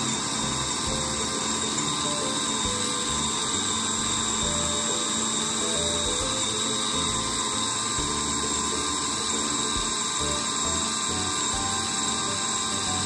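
Electric bowl food chopper running at a steady high whine as it minces chunks of lamb with onion and garlic into ground meat.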